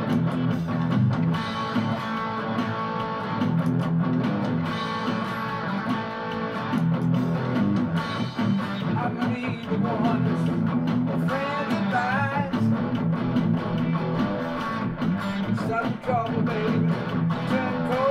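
Electric guitar playing in a rock song, a steady chord part under wavering, bent lead notes that come in about halfway through.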